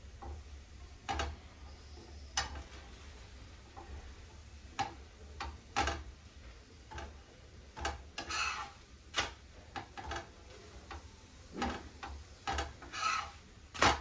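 Light, irregular clicks and taps of a metal spatula on an iron tawa while a paratha cooks, with two short scraping sounds, one a little past the middle and one near the end.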